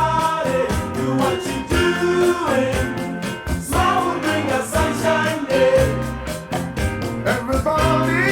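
A pop song with singing voices, guitar and a steady drum beat, played back from a CD player.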